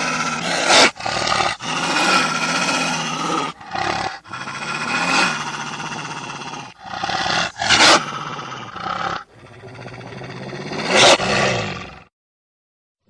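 Wolf growling and snarling in a continuous rough, throaty stream, with three louder outbursts: near the start, about eight seconds in, and near the end, where it cuts off suddenly.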